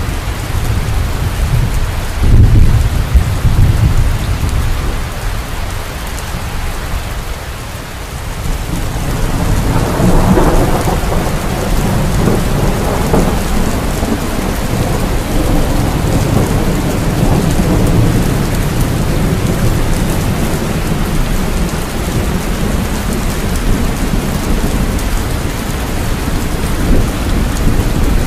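Steady heavy rain with thunder: a low rumble about two seconds in, then a longer rolling rumble that builds from about ten seconds in and slowly fades.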